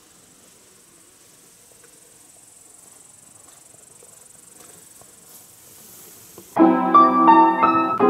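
Faint outdoor ambience with a steady high-pitched insect trill. About six and a half seconds in, piano music starts abruptly and plays loudly.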